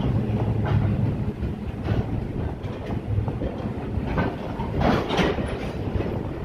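Freight train of hopper wagons rolling past close by: a steady low rumble with wheels clacking over rail joints every second or so, the loudest clatter about five seconds in.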